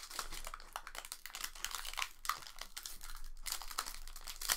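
Foil wrapper of a Hidden Fates Pokémon booster pack crinkling as it is torn open by hand, a dense run of quick crackles.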